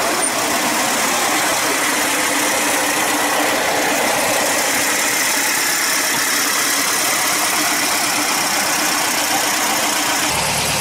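A steady engine-like running noise under a strong, even hiss, with no sudden events.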